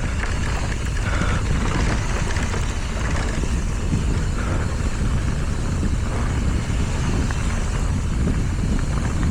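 Mountain bike descending a dirt trail at speed: steady low rumble of wind on the microphone and tyres on the ground.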